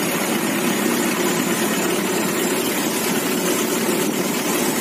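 Tour boat's engine running steadily.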